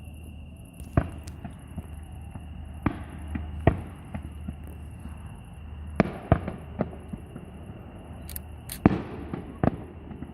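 Fireworks shells bursting at irregular intervals: about eight sharp bangs, several in quick succession, each trailing off in a short rumble, with a few smaller pops between them.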